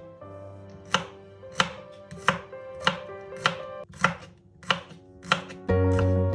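Kitchen knife chopping on a cutting board in about eight even strokes, a little over half a second apart. Soft background music plays under the strokes and swells near the end.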